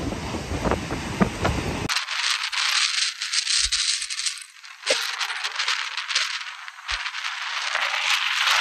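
Hurricane-force wind and wind-driven rain on the microphone. For the first two seconds the wind buffets the mic with a rumble. After that the low end drops out, leaving a thin, crackling, rattling hiss that runs on until near the end.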